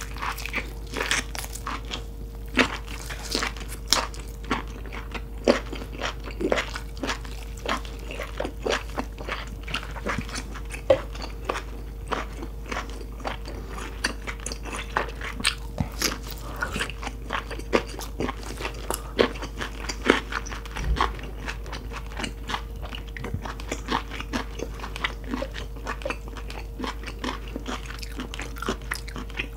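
Close-miked mouth sounds of eating lobster meat: chewing and biting, with many irregular wet clicks and crunches, over a steady faint low hum.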